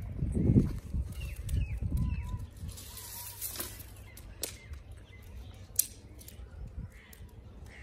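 Outdoor rural ambience: birds giving short chirps and calls, with a few sharp clicks and low rumbling on the microphone in the first couple of seconds.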